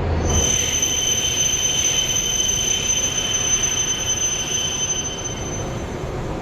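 Shinkansen train pulling in and slowing to a stop, with a steady high-pitched squeal in two tones over the running noise that fades out about five seconds in as the train halts.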